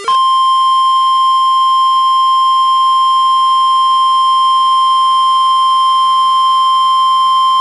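NOAA Weather Radio's 1050 Hz warning alarm tone: one loud, steady, unbroken tone, the signal that a warning message follows.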